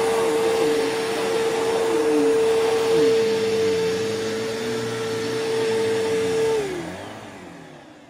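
Bissell Powerforce bagless 6579 upright vacuum cleaner running with a steady hum while pushed over a rug. About six and a half seconds in, it shuts off and the motor winds down, fading away.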